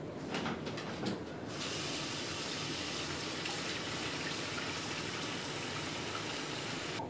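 A few light clicks and knocks, then a bathroom sink's single-lever mixer tap running steadily into the basin from about a second and a half in, cutting off suddenly near the end.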